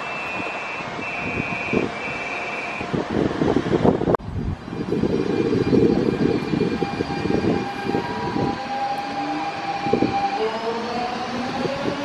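A Copenhagen S-train electric multiple unit pulls away from the platform: low rumble of wheels and running gear, then a motor whine that rises in pitch as it accelerates away. Three short high tones sound in the first few seconds.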